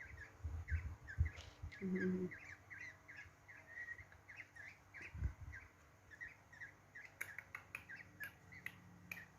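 Young black-naped orioles (kilyawan) chirping: a run of short, quick begging chirps, several a second. A few sharp clicks come near the end.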